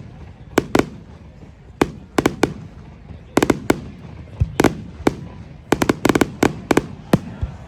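Fireworks display: sharp cracking bangs in quick irregular clusters, several every second, over a low background rumble.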